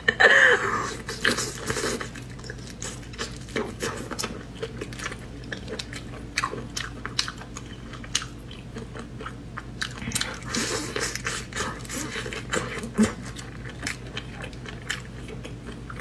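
Close-miked chewing and biting of shrimp, with irregular wet clicks and crunches from the mouth over a faint steady hum.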